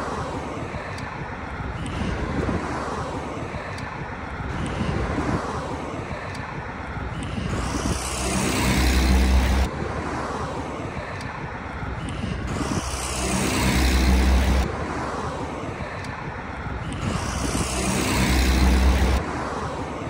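Road traffic noise on a city street: a vehicle's sound swells three times and each time cuts off suddenly.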